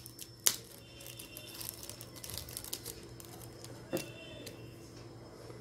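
Faint clicks and rustling as small metal torch parts are handled and screwed together while a jet and nozzle are fitted, with a sharp click about half a second in and another about four seconds in.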